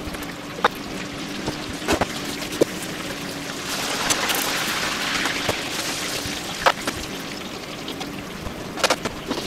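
Water running from a kitchen tap for about two seconds near the middle, with scattered knocks and clinks of metal kitchenware being handled.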